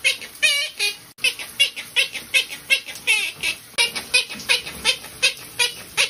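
Monk parakeet talking in a high, squeaky parrot voice, saying "bacon" over and over in quick succession, with one drawn-out word near the start.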